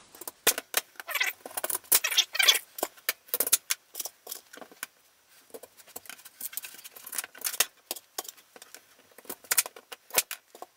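Kitchen knife cutting raw sweet potatoes on a plastic cutting board: irregular sharp clicks and knocks as the blade goes through and strikes the board, with handling of the cut halves.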